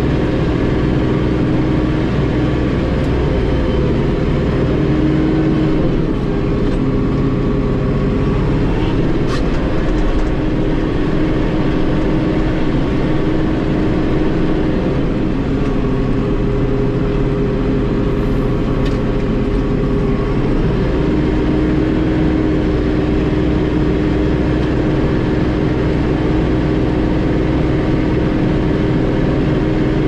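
Mahindra 2665 tractor's diesel engine running steadily under load while driving a snowblower, heard from inside the cab, with a steady tone over the engine note.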